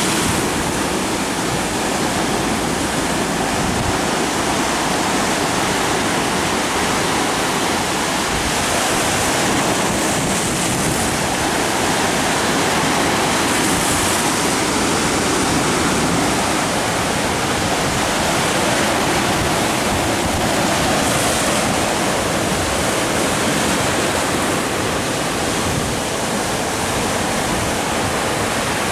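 Sea surf breaking and washing over a rocky boulder shore: a steady rush of foaming water that swells a few times as waves break.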